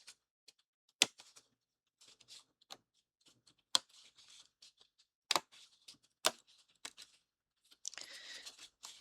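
Small parts and sheets of a miniature model kit being handled: scattered sharp clicks and taps with light crinkly rustling, and a denser rustle near the end.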